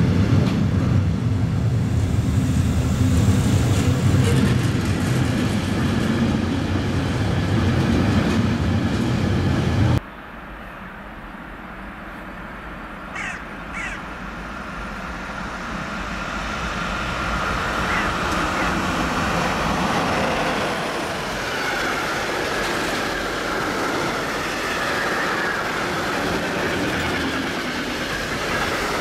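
Freight train of container wagons rolling past with a heavy, low rumble of wheels on rails, which cuts off abruptly about a third of the way in. Two short bird calls follow. Then a second freight train of tank wagons approaches, its rolling noise building steadily until it passes close by.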